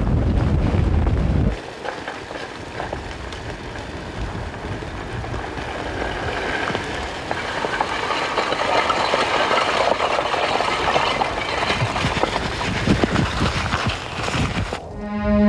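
A low rumble that cuts off suddenly after about a second and a half, then crackling and hissing from the front of a lava flow burning through grass and shrubs, growing louder toward the end. Music comes in just before the end.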